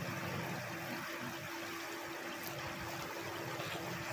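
Semolina-and-egg pitha balls deep-frying in hot oil in a pan: a steady bubbling sizzle.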